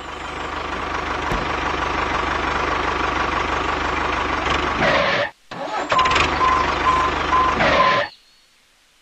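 Tractor engine running steadily. It cuts out about five seconds in, comes back with a pulsing beep for about two seconds, and stops about eight seconds in.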